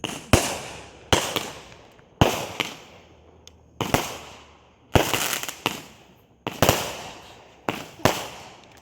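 200-gram consumer firework cakes going off in a string of sharp bangs, roughly one a second with a few close pairs, each report trailing off before the next.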